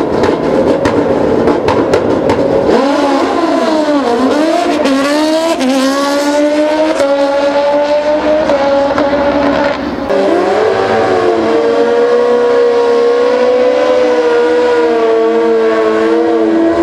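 Drag-racing motorcycle engines: revving with a crackle at the start line, then a launch about three seconds in and the engine revving up through several quick upshifts, the pitch dropping back at each shift. About ten seconds in, another bike's engine is held at high, steady revs for a burnout.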